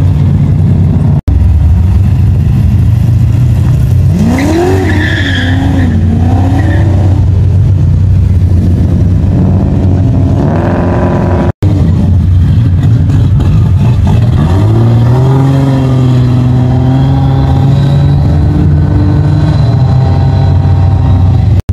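Loud, deep exhaust rumble of classic muscle cars, with engines revved up in rising surges as the cars accelerate away: about four seconds in, around ten seconds, and again from about fourteen seconds, where the revs climb and hold high.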